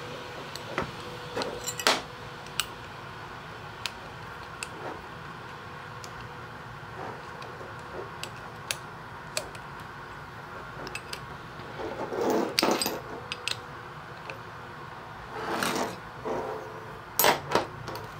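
Intermittent clicks, taps and scrapes of small metal parts and hand tools being handled while a tire inflator gauge is put back together, with a few longer bouts of scraping and clattering in the second half.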